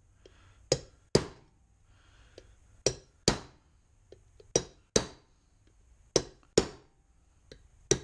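Ball-peen hammer striking a steel punch to drive a bearing out of an NP231 transfer case's slip yoke eliminator housing. The blows come in quick pairs, four pairs and a last single blow, each ringing briefly.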